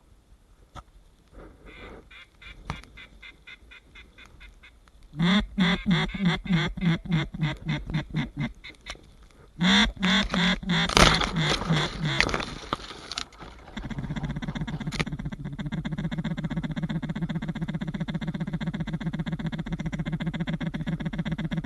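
A mallard duck call blown by a hunter: two loud runs of quacks that fall off in volume, like a hail call, followed by a long, fast, even chatter like a feeding call.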